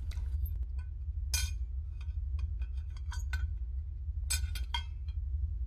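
Cutlery clinking against dinner plates: scattered light clinks with a few louder, ringing ones about a second and a half in, around three seconds in and near the end, over a steady low hum.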